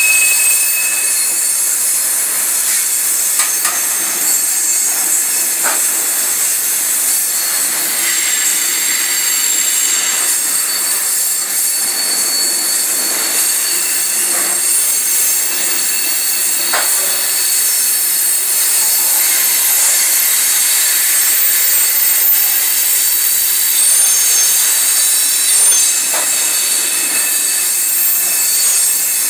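Loaded coal hopper cars rolling slowly past, their steel wheels screeching against the rails in a steady high-pitched squeal, with a few short knocks from the cars.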